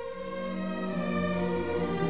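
Symphony orchestra playing held chords, strings to the fore, building steadily louder, with low bass notes coming in about a second in.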